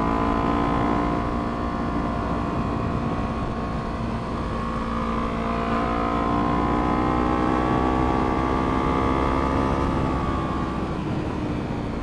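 Motorcycle engine running at a steady road speed, its pitch drifting slightly up and down and easing off near the end, with wind rumble on the helmet-mounted camera.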